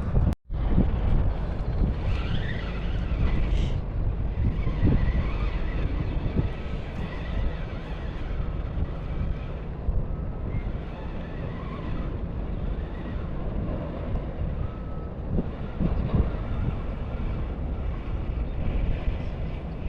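Wind buffeting the microphone outdoors: a low, uneven rumble, cut off by a brief dropout about half a second in.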